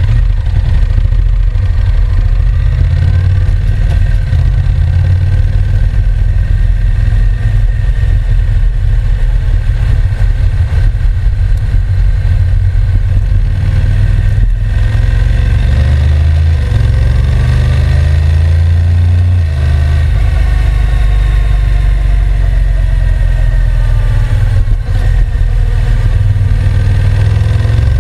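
Honda NC750X's parallel-twin engine running loud and steady, its revs rising and falling several times, with short dips about midway and again near the end.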